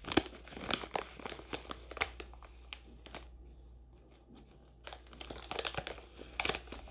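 A plastic seasoning sachet crinkling as it is opened and squeezed by hand: irregular sharp crackles, busiest in the first second and again in the last two seconds, sparser in between.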